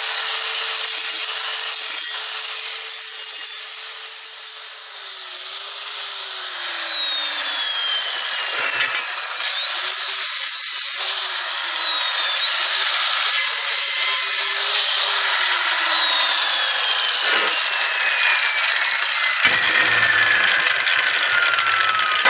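Hand-held angle grinder grinding the corners of a steel tractor drawbar part. Its high whine dips as the disc bites and recovers. It stops briefly, spins back up about twelve seconds in, then winds down with a steadily falling pitch over the last several seconds.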